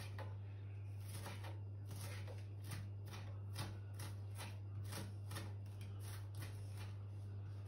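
A kitchen knife chopping leek and spring onion finely on a wooden cutting board: soft, even taps about twice a second, over a steady low hum.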